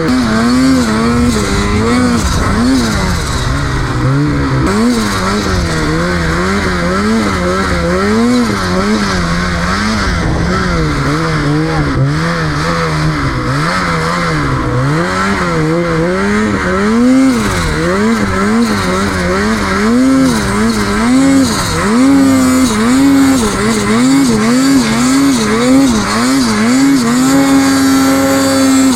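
Snowmobile engine revving up and down over and over as the throttle is worked in deep snow, its pitch rising and falling about once a second, then holding steady at a higher pitch near the end.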